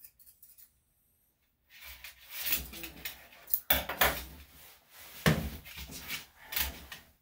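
Rustling handling noise with a few sharp clacks, the loudest about halfway through and again near the end: grooming tools being handled and set down on a hard tiled floor while the dog is held.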